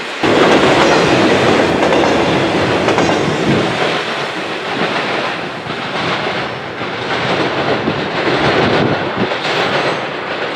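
Intermodal freight train rolling past, double-stack container cars and then trailer-carrying flatcars: steel wheels clacking over the rail joints in a steady, loud rush of rolling noise.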